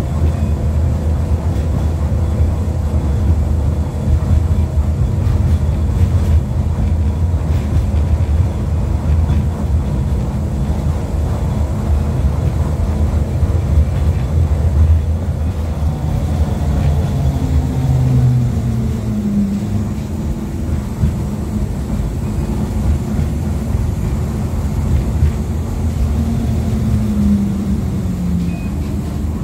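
LVS-86K articulated tram running between stops, heard from on board: a steady low rumble of wheels and running gear on the rails. Twice, about two-thirds of the way in and again near the end, a motor whine glides up and down in pitch as the tram changes speed.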